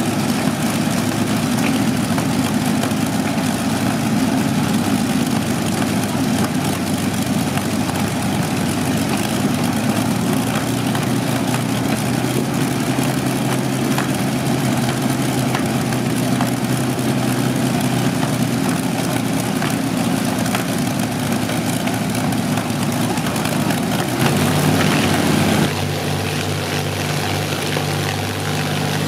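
Two Rolls-Royce Merlin V12 aero engines running steadily on ground-run stands, their propellers turning. About 24 seconds in the sound swells briefly, then settles back to a lower, steadier note.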